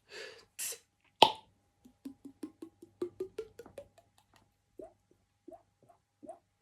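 Water-drop sound effect made with the mouth: a loud sharp click, then a quick run of hollow plops stepping up in pitch, then slower single plops. Two short hissy breaths come at the start.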